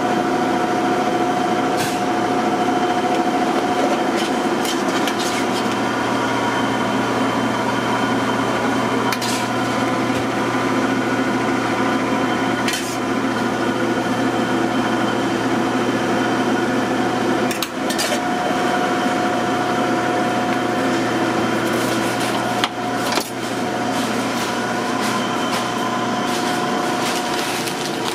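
Steady hum of kitchen machinery, with a few sharp clinks of a metal spoon against steel food pans.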